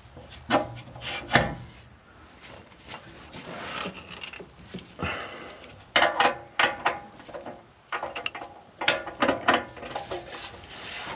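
Hand tools working on seized exhaust-manifold stud nuts: bursts of metallic clicking and scraping, like a ratchet and socket being worked, with a brief hiss in the middle.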